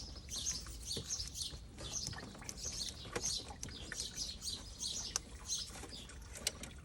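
Small birds chirping repeatedly in the background, with a few scattered clicks and knocks from hands working a stuck part loose on the car.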